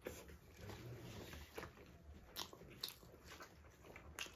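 Close-up eating sounds of people chewing and biting chicken drumsticks: quiet wet chewing, with a few sharp mouth clicks and smacks.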